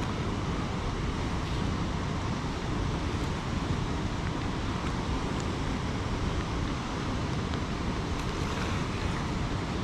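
Steady, even rush of water pouring over a spillway.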